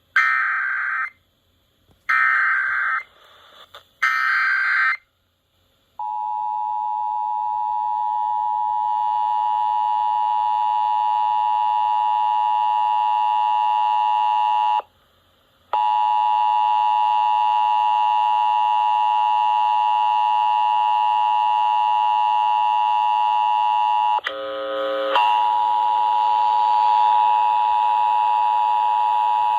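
Emergency Alert System test: three one-second bursts of screeching digital header tones with short silences between them, then the EAS two-tone attention signal, a steady harsh dual tone. The dual tone cuts out for about a second midway and shifts briefly near the end before sounding on.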